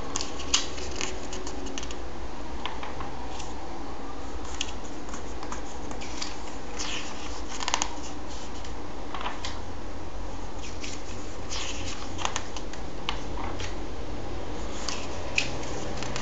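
Comic-book pages being handled and turned by hand: scattered short paper crinkles and rustles, the sharpest about half a second in, near eight seconds and near fifteen seconds, over a steady low background hum.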